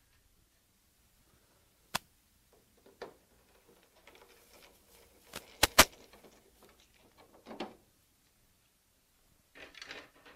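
Clicks, knocks and light scraping as the rear connector panels of an HP Designjet 1050C plotter are worked loose and lifted off, with two loud sharp clicks close together about halfway through.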